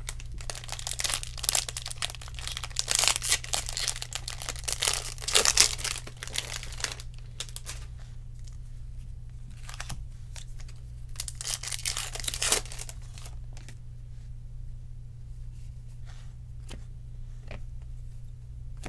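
Red foil wrapper of a pack of baseball cards being torn open and crinkled for several seconds, with another short burst of crinkling about twelve seconds in. After that come soft clicks and slides as the cards are handled.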